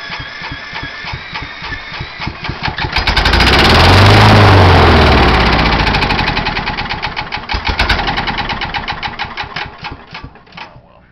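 Kawasaki FC150V single-cylinder mower engine spun by an electric drill, the drill whining under the cranking strokes. About three seconds in it fires and runs loudly for a few seconds, then slows and dies out. It will not keep running, which the owner blames on a worn-out carburetor and dirty fuel.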